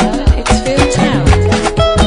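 Upbeat music with a steady drum beat and sung or instrumental melody lines.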